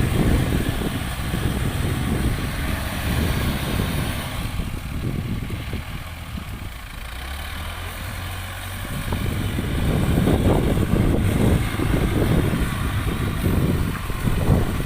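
Rice-hauling tractor's engine running, dropping away for a few seconds in the middle, then louder again.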